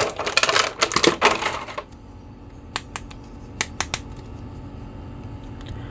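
Clear plastic bag crinkling and plastic action figures clicking against each other as hands sort through them: a dense flurry of clicks and crackles for about the first two seconds, then a few scattered clicks.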